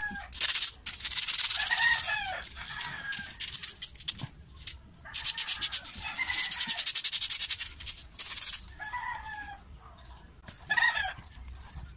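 Sandpaper rubbing against the commutator of an electric planer's armature in quick back-and-forth strokes, in two bursts, one early and one in the middle. A rooster crows in the background several times.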